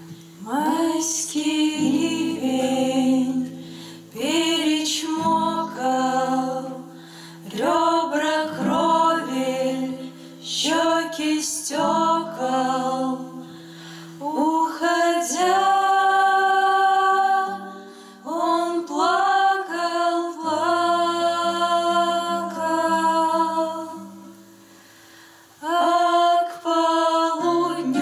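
Two female voices singing a song in harmony to acoustic guitar accompaniment, phrase by phrase with short breaks between lines; the singing drops away briefly a little before the end, then picks up again.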